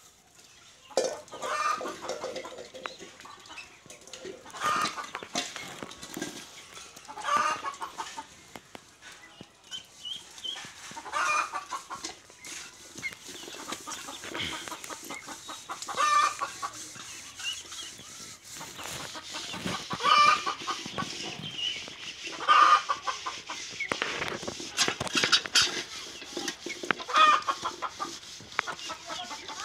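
Domestic poultry calling: loud short calls come every two to four seconds, with quieter calls in between.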